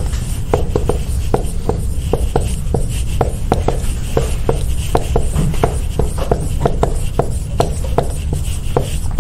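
Irregular sharp tapping and clicking, about three or four taps a second, over a steady low room hum.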